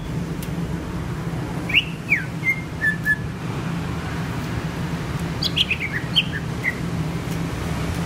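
Male green leafbird (cucak ijo) singing in two short bursts: a few sliding chirps about two seconds in, then a quick run of descending notes between about five and a half and seven seconds. A steady low hum runs underneath.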